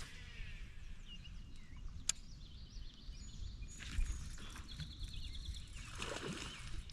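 Outdoor river ambience on a small fishing boat: a steady low rumble of wind and water, with birds chirping and a short trill after the middle. A sharp click comes about two seconds in, and a louder knock about four seconds in.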